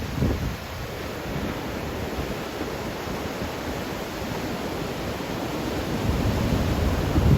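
Ocean surf breaking and washing on a beach, a steady rush of waves, with wind buffeting the microphone in heavier gusts at the start and again near the end.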